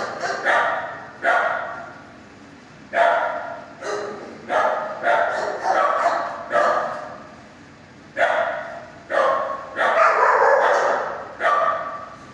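Shelter dogs barking, about a dozen barks at irregular intervals with two short lulls and one longer bark near the end. Each bark echoes in the hard-walled kennel room.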